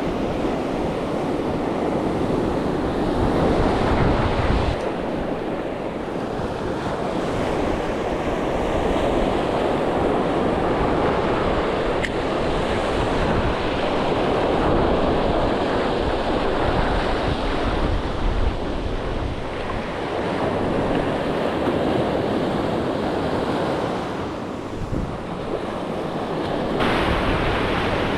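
Sea surf washing onto the shore, swelling and easing over several seconds, with wind buffeting the microphone.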